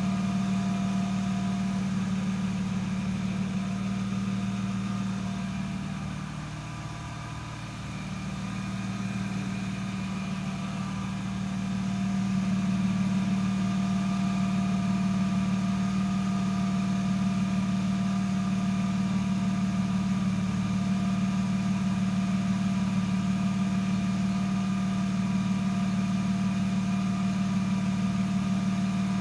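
BMW 323i E36's 2.5-litre M52 straight-six engine idling steadily while warming up, dipping briefly in loudness about a quarter of the way through.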